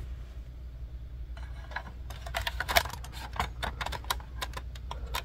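Rapid, irregular clicking and crackling of hands handling plastic and tape on an opened battery pack, starting about a second and a half in, over a low steady hum.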